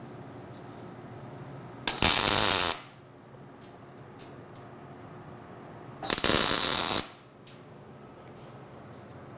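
MIG welder striking two tack welds, each a steady hiss of the arc lasting about a second: the first about two seconds in and the second about six seconds in. Between them there are only a few light taps as the steel bracing is handled.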